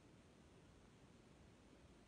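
Near silence: a faint, steady background hiss with no distinct sound.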